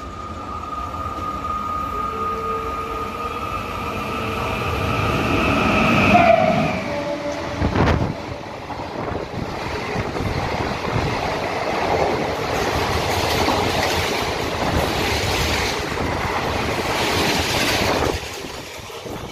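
Indian Railways express train, an electric locomotive hauling ICF coaches, passing through a station at speed. The locomotive's horn sounds steadily on approach and drops in pitch as the engine goes by about six seconds in. The coaches then rush past with wheels clattering over the rail joints until the last one clears near the end.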